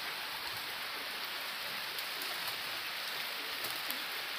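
Rain falling steadily, an even hiss with a few sharper drop taps.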